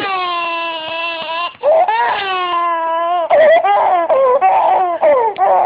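Infant crying: two long drawn-out wails, each falling slightly in pitch, then shorter, choppier crying sobs from about three seconds in.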